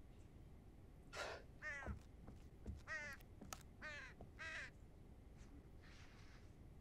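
Crow cawing faintly in a short series of about five harsh calls, starting about a second in.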